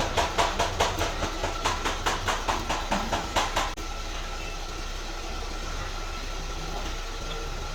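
A rapid, regular series of sharp knocks, about three or four a second, stopping after nearly four seconds. A quieter steady hum follows.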